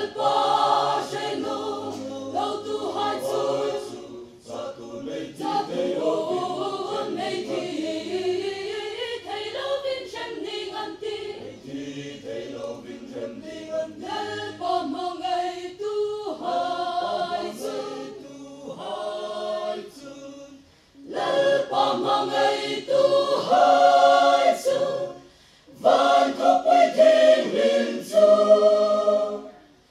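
Mixed choir of men and women singing a hymn in harmony, unaccompanied, in phrases with brief breaks between them; the last phrases are the loudest.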